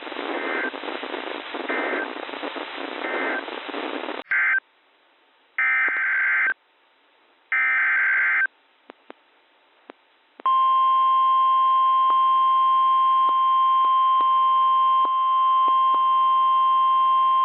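Weather-radio receiver static with faint short data blips. About four seconds in, after a click, come three separate bursts of Emergency Alert System SAME header data tones. From about ten seconds on there is a loud, steady single-pitch warning alert tone near 1050 Hz, the NOAA Weather Radio alarm that comes before a new warning.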